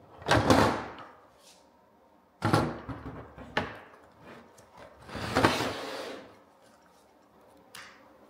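A power-station battery pack being pulled out of its hard plastic housing tray and set upright on a table: three bursts of plastic scraping and knocking, each about a second long.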